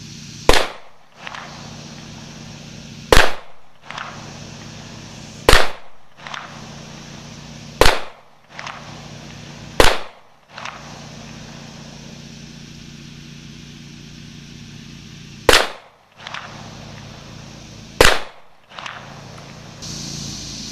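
Seven shots from a Springfield XDM 5.25 pistol in .40 caliber, fired two to three seconds apart with a longer pause before the last two. Each sharp report is followed by a fainter second crack about half a second later.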